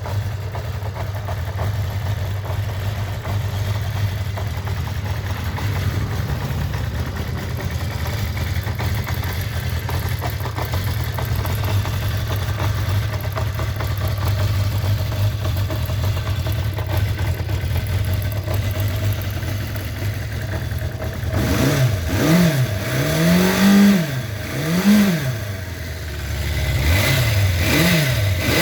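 Kawasaki Zephyr 550's air-cooled inline-four engine idling steadily with a rattly clatter. In the last seven seconds or so it is revved in a series of short throttle blips that each rise and fall.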